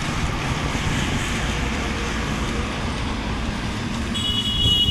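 Steady highway traffic noise as vehicles pass close by. A high-pitched steady tone comes in near the end.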